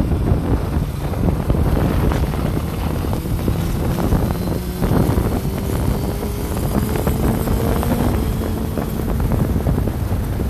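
Heavy wind buffeting the microphone of a phone riding on a motorcycle at highway speed, over the bike's engine. About halfway through, a faint engine tone rises slowly as the bike pulls harder.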